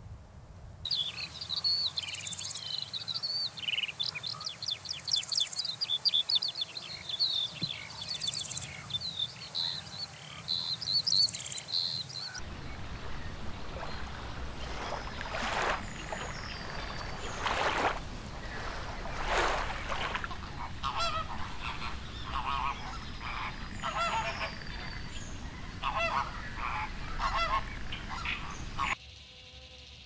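Bird calls in two stretches: first a flock's dense, rapid high-pitched chirping, then after a sudden change about twelve seconds in, repeated lower calls in short runs, which stop shortly before the end.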